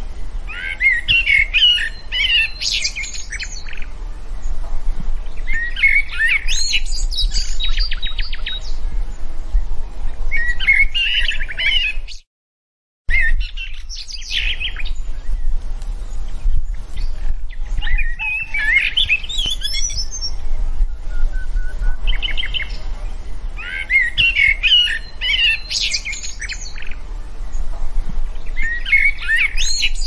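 Songbirds chirping and trilling in short phrases that recur every few seconds, over a steady low rumble. The sound cuts out completely for under a second about twelve seconds in.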